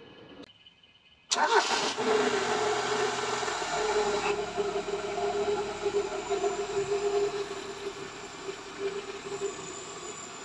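Car engine starting about a second in and then idling, louder for the first few seconds before settling to a steadier idle, as the engine is test-run with a newly wired idle-up solenoid and its vacuum hoses hooked up.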